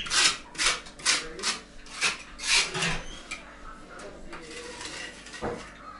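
Rhythmic scraping strokes across the top of a brick stove, about two a second, dying away about three seconds in.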